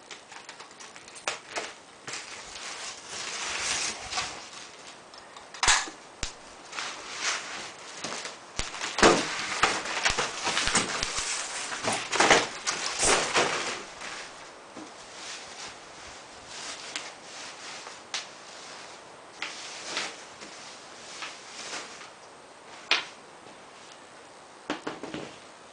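Packaging around a boxed solar panel being handled and pulled away: scattered sharp clicks and snaps with stretches of crinkling, busiest near the middle.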